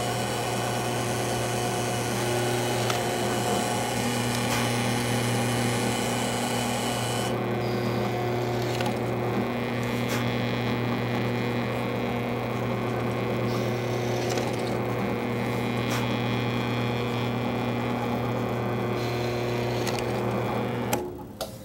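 Drill press motor running with a steady hum while its bit bores a row of shelf-pin holes through a cabinet side panel into a scrap backer board. The hum stops abruptly near the end.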